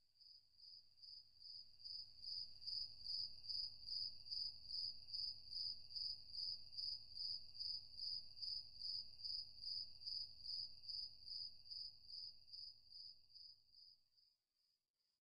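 Faint cricket chirping, a steady high-pitched chirp repeating about two and a half times a second. It fades in over the first two seconds and fades out a little before the end.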